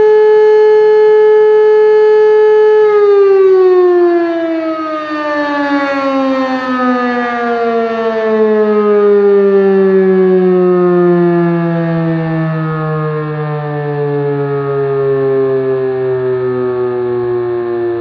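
E57 electromechanical civil-defence siren sounding a steady tone. About three seconds in it is switched off, and its pitch falls gradually as the rotor winds down.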